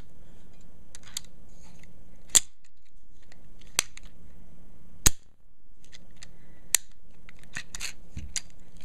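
Metal clicks and snaps from a Denix replica Schofield break-top revolver being worked by hand: the frame swung shut on its loaded cylinder and the hammer handled. Four sharp clicks spread out, the loudest about five seconds in, then a quick run of smaller clicks near the end.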